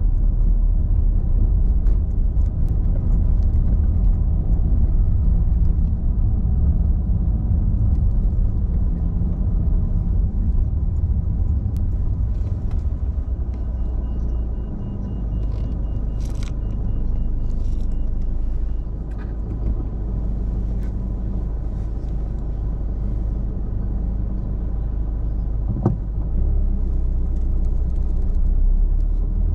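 A car driving, a steady low rumble of engine and road noise, with a few faint clicks about halfway through.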